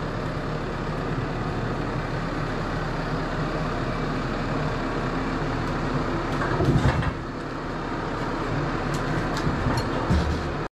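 New Holland tractor's diesel engine running steadily as it carries a log on its front forks, with a heavy clunk about two-thirds through and a lighter knock near the end.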